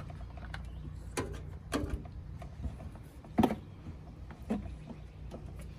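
Hard plastic knocks and clicks as the old coolant expansion tank and its hose are handled and tipped to drain coolant into a plastic drink bottle, with a handful of sharp knocks, the loudest about halfway through.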